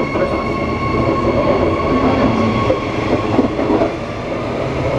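Queensland Rail electric train moving along the platform: a steady electric whine over the rumble of its wheels. The whine fades about four seconds in.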